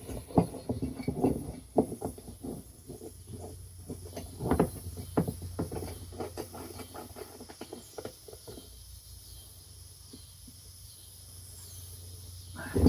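Nut on a plastic drain fitting being tightened with a wrench against the wall of a plastic tub: irregular clicks and knocks, busy for most of the first eight seconds, then sparse.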